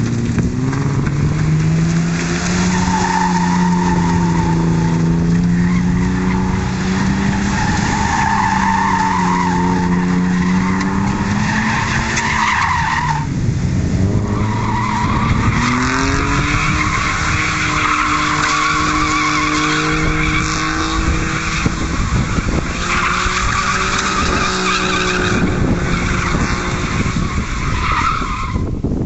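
Nissan Skyline drifting: the engine held at high revs, its pitch wavering up and down, with the rear tyres squealing in long stretches. There is a brief lull about halfway through, after which the engine and tyres pick up again.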